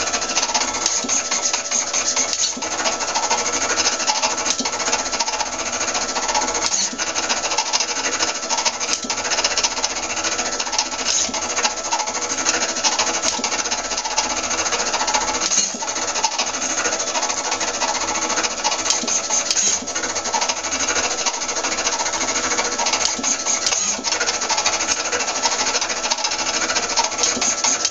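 DPX-2000 pen plotter drawing: its stepper motors drive the pen carriage and arm with a dense mechanical rattle and buzz, full of rapid clicks as the pen moves in short strokes.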